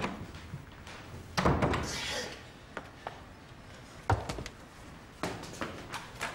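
An office door shuts with a thud about a second and a half in. Scattered sharp knocks and clunks follow, the loudest about four seconds in, as a window and a wooden desk drawer are handled.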